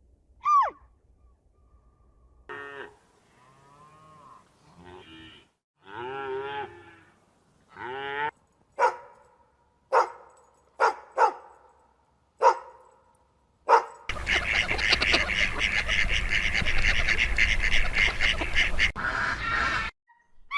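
A series of animal calls: a short falling call, then several drawn-out low calls, then a run of short sharp calls, and from about two-thirds of the way in a dense chorus of many animals calling at once.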